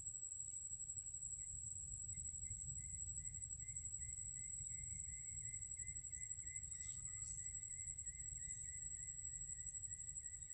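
Faint outdoor ambience of insects: a steady high-pitched drone, joined about a second and a half in by a second, lower, pulsing trill, over a low rumble.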